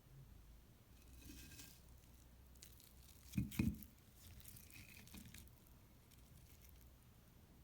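Faint food-preparation handling sounds: brief soft rustles, with a pair of light knocks about three and a half seconds in.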